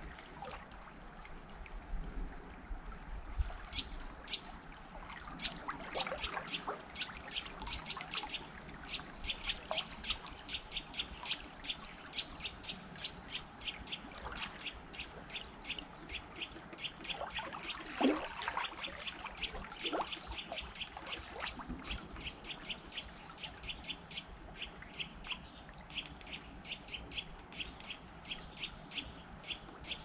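River water trickling and pouring, with birds chirping in quick, steady repetition, several short chirps a second. One louder sweep falls in pitch about eighteen seconds in.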